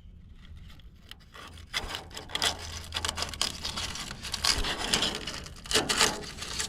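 Dry scraping and rustling from hands working at the opening behind a pickup's tail light. Irregular rubbing strokes start about a second and a half in and grow loudest just before the end.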